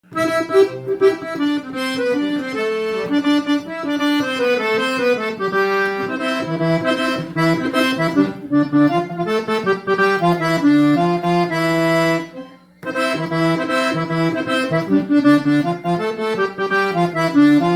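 Accordion playing an instrumental melody over bass notes, breaking off briefly about twelve seconds in before resuming.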